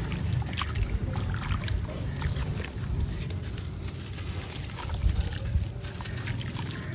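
Hands crumbling wet, gritty sand-cement chunks over a tub of water: a run of crunchy crackles and clicks as the chunks break up, with pieces sloshing and plopping into the water.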